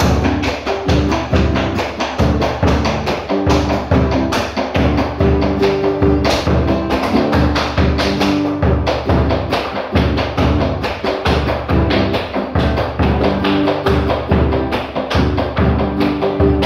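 Malambo music, with a drum beating a fast, even rhythm under held instrumental notes, and the sharp clacks of boots stamping the zapateo on a hard floor.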